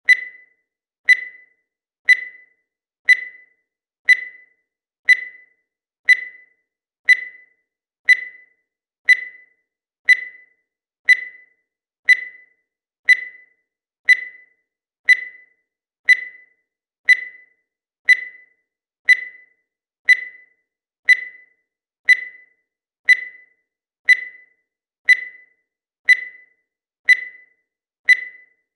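Digital timer beeping once every second: a short, high electronic beep, each dying away quickly.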